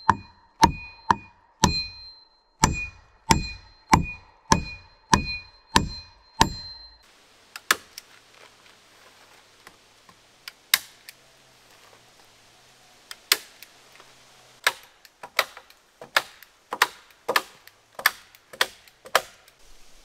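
Hatchet driving a metal spike into a log: sharp, ringing metal-on-metal blows, about two a second. About seven seconds in, after a cut, come duller blows without the ring, sparse at first and then about two a second near the end.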